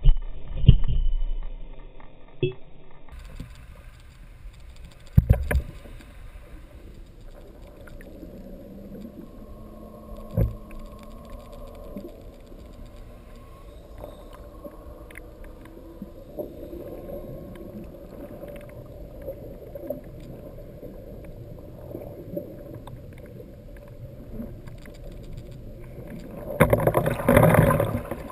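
Underwater sound picked up by a submerged camera: a steady low rumble and hum, a few dull knocks in the first half, then a loud rushing burst of water noise near the end.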